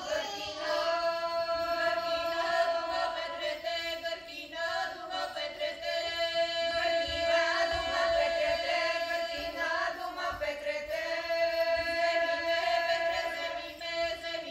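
Bulgarian women's folk ensemble singing polyphony, the upper voices moving over a steady held drone note.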